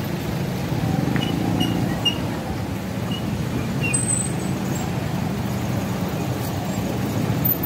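Street traffic: a steady low rumble of road vehicles passing close by.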